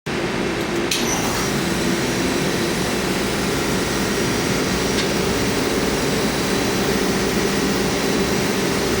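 CNC milling machine's end mill profile-cutting Elmax powder steel at 3600 RPM, taking 1/8-inch passes: a steady, dense cutting noise with a low hum.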